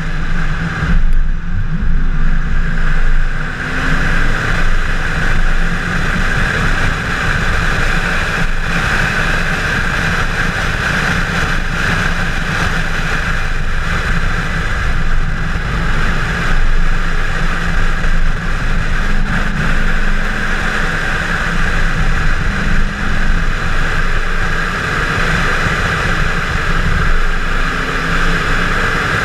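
Chevrolet Camaro 1LE at track speed, heard from a camera mounted on the car: steady wind rush and road roar, with the engine running underneath and a few brief changes in engine pitch.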